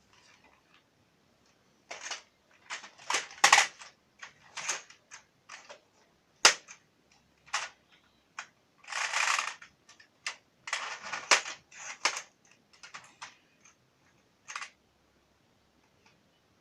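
Irregular sharp clicks and knocks, a dozen or more over about twelve seconds, with two short scraping noises in the middle, like a small hard object being handled and knocked about.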